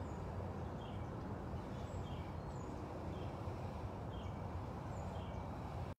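Outdoor ambience: a steady low background rumble with small birds chirping, a dozen or so short, quick, falling chirps scattered throughout.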